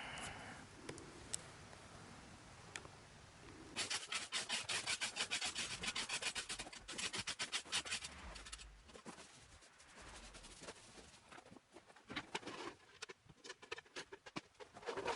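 Rapid back-and-forth rubbing strokes, about seven a second, for roughly five seconds starting about four seconds in, followed by fainter, irregular scratching.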